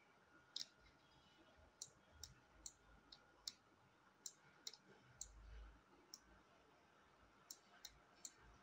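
Computer mouse clicking, about a dozen faint, irregularly spaced clicks over near-silent room tone.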